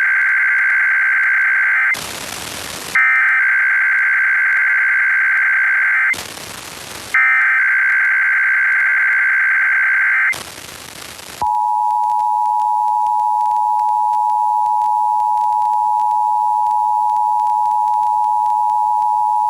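Emergency Alert System SAME header heard over FM radio: three bursts of warbling digital data tones, each about three seconds long, with about a second of radio hiss between them. About eleven seconds in, the steady two-tone EAS attention signal starts and holds.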